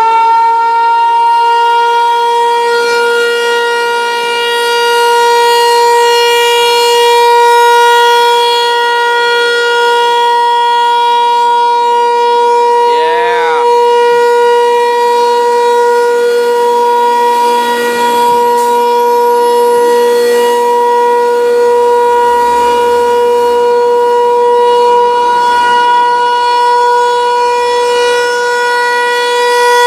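Federal Signal 508 outdoor tornado siren sounding for a test. It finishes winding up to full pitch right at the start, then holds one loud, steady wail whose loudness swells and fades slightly.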